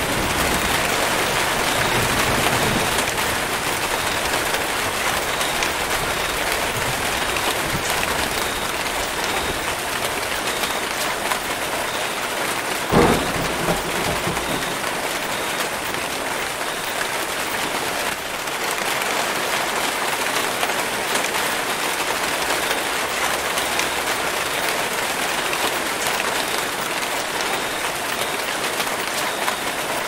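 Steady heavy rain pouring onto rainforest foliage, with a single sharp knock about thirteen seconds in.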